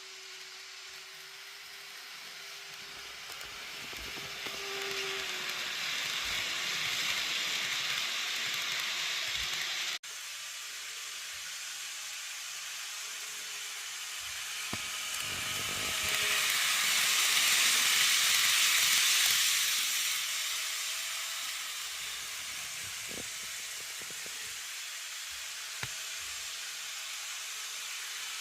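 Model Glacier Express train running on its track: a steady rushing hiss of wheels on rail that swells as the train comes close, once around six seconds in and again, louder, around eighteen seconds in. The sound breaks off for an instant about ten seconds in.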